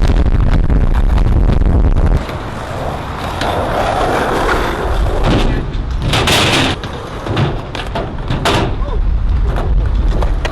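Music cuts off abruptly about two seconds in, giving way to skateboard wheels rolling on concrete with sharp clacks of the board landing and hitting coping, and voices in the background.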